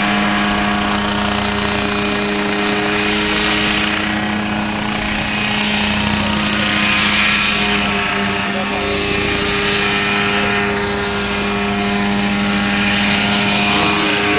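Homebuilt Nolan coaxial helicopter flying overhead. Its engine and rotors make a steady drone that swells and eases several times as it moves around.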